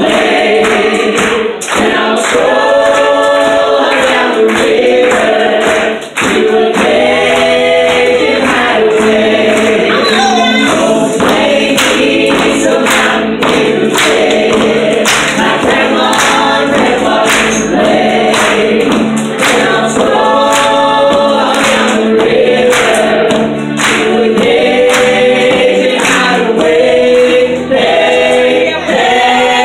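A group of stage performers singing together in chorus to an upbeat honky-tonk style song, with a steady beat of claps or percussion.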